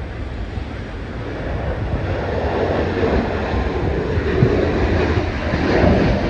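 Jet engines of a Boeing 747 freighter, a steady rushing noise that grows louder as the aircraft comes closer. Wind buffets the microphone.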